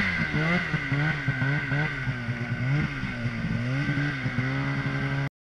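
Polaris snowmobile engine running under throttle while riding, its pitch rising and falling again and again, with a steady high whine over it. The sound cuts off suddenly near the end.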